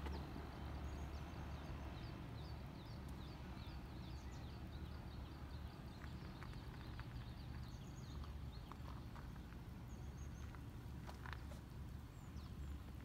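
Outdoor mountain ambience with a steady low rumble of wind on the microphone. Over it a bird calls in a fast run of short, high, falling chirps, several a second, for the first eight seconds or so. A few sharp clicks come later, the clearest about eleven seconds in.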